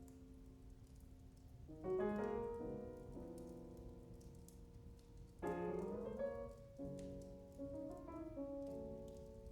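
Jazz piano trio recording played over Sound Lab G9-7C electrostatic loudspeakers: piano chords struck about two seconds in, again around five and a half and seven seconds, and ringing out between them. Light crackling from an open fire in the room runs underneath.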